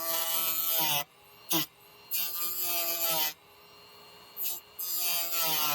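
Dremel rotary tool with an EZ cut wheel cutting plexiglass: a harsh screech in four bursts, the third brief, each bending in pitch as the wheel bites and lets go, with the tool's motor humming steadily in between.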